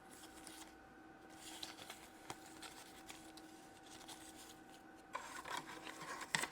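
Faint rustling and rubbing of hands handling small toy accessories (play money and coins), busier near the end, with a single light click a little over two seconds in and a faint steady hum behind.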